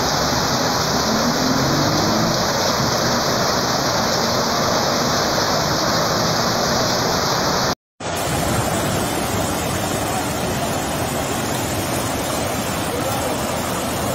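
A steady rushing noise that cuts out sharply for a moment about eight seconds in. After the break, water pours over the spillway of a full reservoir in a steady rush.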